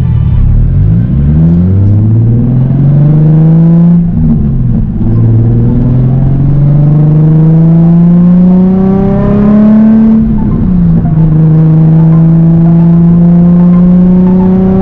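Nissan 350Z HR's VQ35HR V6 through a straight-piped Tomei exhaust, heard from inside the cabin as the car pulls away: revs climb through first gear, dip at a gear change about four seconds in, climb again through second, and drop at another shift around ten seconds in before settling to a steady cruise.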